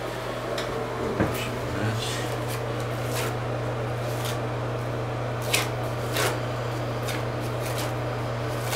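Hand rubbing and smoothing fiberglass mesh tape into wet liquid waterproofing membrane in a shower corner: soft, scratchy rubbing strokes over a steady low hum.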